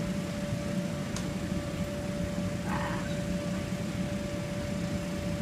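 A steady low mechanical drone with a constant thin hum over it, a single click about a second in and a brief rustle near three seconds.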